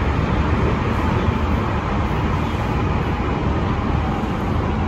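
Semboku Rapid Railway 5000 series electric train running through a tunnel, heard from inside the front car: a steady running noise, heaviest in the low end.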